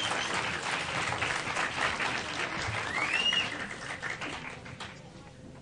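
Audience applauding, the clapping fading out about four and a half seconds in. A brief whistle rises and falls near the middle.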